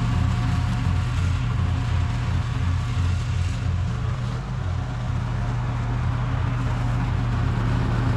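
Toro TimeCutter SS4260 zero-turn mower's engine running steadily under load while mowing. It eases off slightly midway and picks up again near the end.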